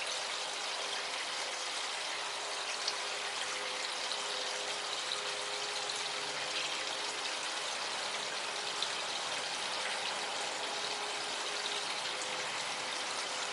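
Small garden pond waterfall trickling and splashing over rocks, a steady running-water sound, with a faint steady hum beneath it.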